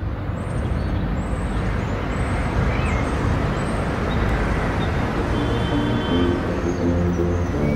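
Steady rushing noise with a deep rumble, fading up at the start. Music with low held notes comes in near the end.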